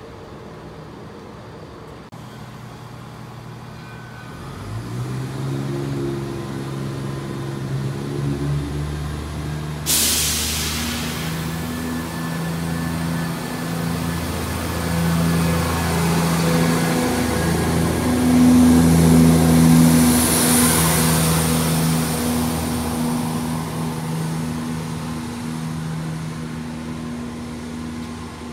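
Chiltern Railways Class 168 diesel multiple unit departing: its underfloor diesel engines rev up about four seconds in and keep running under load as the carriages pull past, with a sudden hiss of air about ten seconds in. The engine sound swells in the middle and then fades toward the end.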